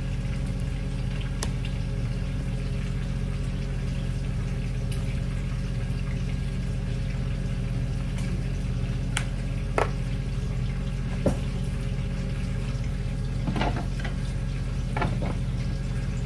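Steady low hum, with a few sharp clicks and a cluster of light taps near the end as a pepper shaker is shaken over a bowl and handled.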